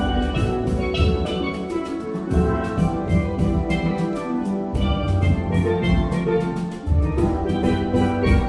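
Steelband playing: steel pans ringing out a melody and chords in quick struck notes over the deep notes of the bass pans.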